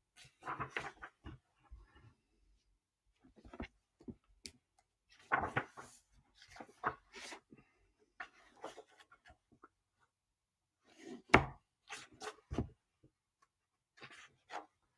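Irregular knocks, taps and rustles of objects being handled close to the microphone, with one sharp knock about eleven seconds in.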